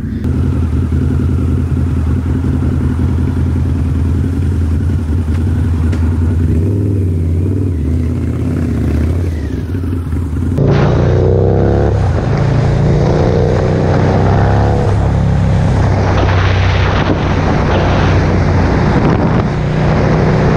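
Harley-Davidson V-twin motorcycle engine idling steadily, then, about halfway through, revving as the bike pulls away and accelerates, and running on at road speed.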